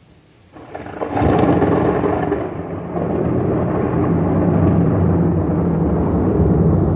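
Very loud thunder: after faint background noise, a clap breaks about a second in and rolls on as a long, low rumble.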